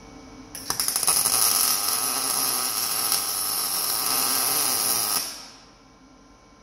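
Electric arc welding crackling and hissing, starting with a few sputters about half a second in and cutting off sharply after about five seconds. It is a heavy tack weld fixing a steel rock slider to a Suzuki Sidekick's frame.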